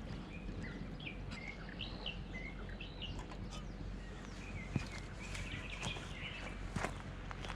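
Several birds chirping and whistling in short, gliding calls over a steady low rumble, with a few sharp clicks in the second half.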